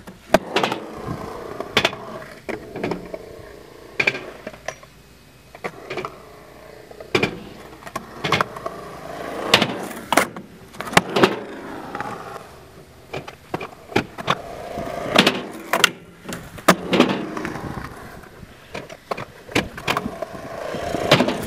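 Skateboard wheels rolling over concrete, with many sharp clacks from the tail popping and the board landing. In between, the board scrapes along the edge of a ledge.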